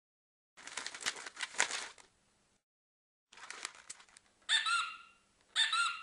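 Two stretches of crackling, rustling noise, then two short honking, bird-like calls about a second apart, which are the loudest sounds.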